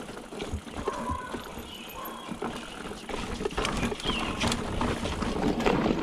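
Electric mountain bike riding over a dirt trail strewn with leaves, stones and roots: steady tyre noise with frequent small knocks and rattles from the bike over the bumps, getting louder about halfway through.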